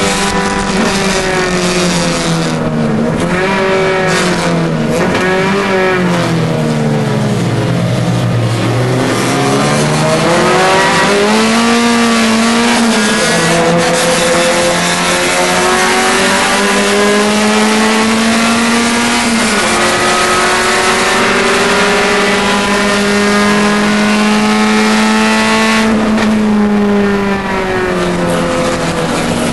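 VVL-swapped Nissan Sentra SE-R four-cylinder racing engine, heard from inside the car under hard driving. The revs dip and waver, fall to their lowest about eight seconds in, then climb again in long rising pulls. Two sudden drops in pitch mark upshifts, and the engine holds high revs until a brief lift near the end.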